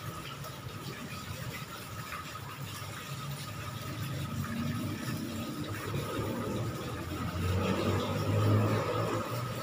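Low engine-like rumble with a faint steady tone above it, growing louder through the second half and loudest about eight and a half seconds in.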